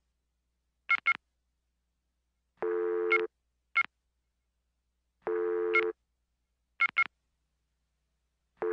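Telephone-line tones: pairs of short high beeps alternating with a low steady tone about half a second long, repeating roughly every two and a half seconds with silence in between.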